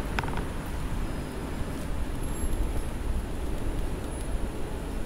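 Steady low rumble of outdoor background noise, with a couple of brief metallic clicks near the start as an Allen key is worked into an inline skate wheel's bearing.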